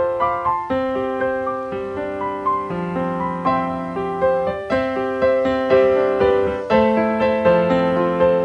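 Piano music: a gentle melody and chords played in steady, evenly spaced notes.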